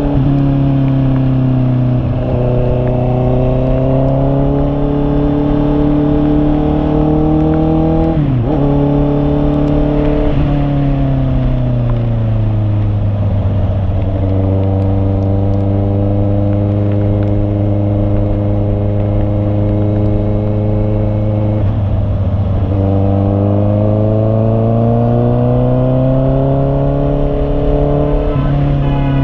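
Honda CB650R's 649 cc inline-four engine running, its note holding steady, easing down in pitch about ten to thirteen seconds in, staying low, then climbing again from about twenty-two seconds, with a few short breaks in the note.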